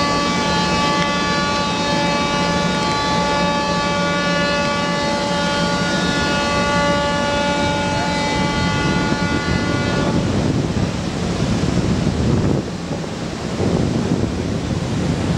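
Ship horns sounding a long, steady blast in salute at the launch of a jack-up drilling rig, cutting off about ten seconds in. After that, a low rumbling noise of wind on the microphone.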